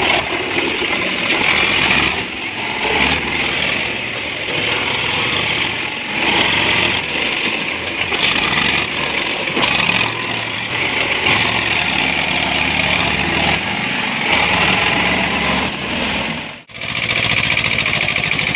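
Diesel tractor engines running hard while one tractor tows another, stuck one free. The engine noise rises and falls, and it breaks off sharply for a moment near the end.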